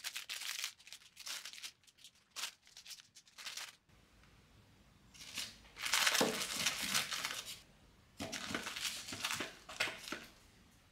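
Tissue paper crinkling and rustling as small items are pushed into a gift box: quick rustles at first, then a longer, louder stretch of crinkling about halfway through and more near the end.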